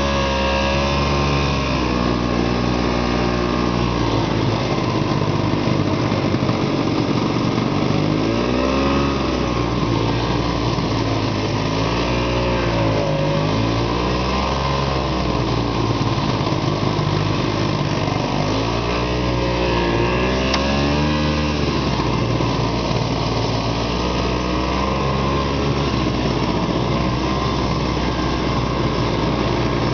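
Arctic Cat Panther snowmobile engine running under way, its revs rising and falling again and again as the throttle is worked.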